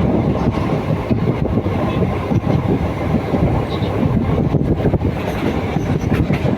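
Passenger train running along the track: a steady loud rumble with the wheels clattering irregularly over the rails.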